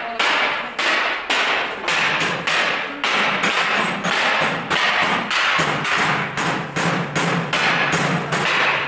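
Steady hammering on steel, about two blows a second, each blow sharp and dying away quickly.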